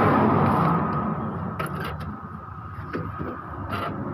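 A few short clicks from the plastic body of an Epson L3110 printer being handled, over a steady low background rumble.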